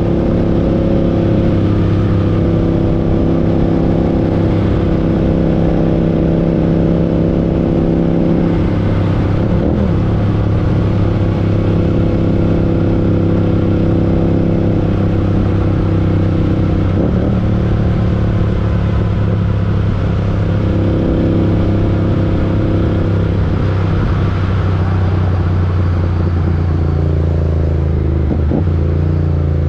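Parallel-twin motorcycle engines running at steady cruising revs, the engine note shifting briefly about a third of the way in, about halfway, and again near the end as the throttle changes.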